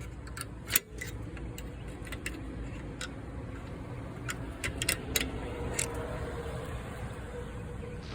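Scattered small metallic clicks and taps of rear brake parts being worked into place by hand, with one louder knock about a second in, over a steady low hum.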